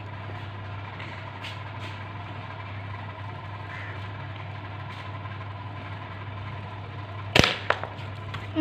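A steady low hum, then about seven seconds in a single sharp shot from a B3-2 spring-piston air rifle, with a second, weaker crack right after it as the pellet hits and knocks over the small metal target.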